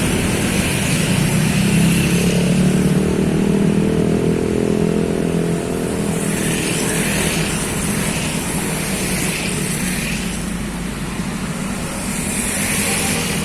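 Road traffic: a motor vehicle's engine runs steadily over tyre and road noise. Its pitch rises and falls briefly about four to five seconds in, as a vehicle passes or revs.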